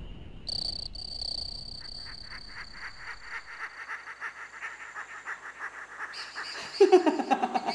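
Woodland animal chorus of insects and frogs: thin steady high trilling with a pulsing croak repeating about five times a second. Near the end a person breaks into loud laughter.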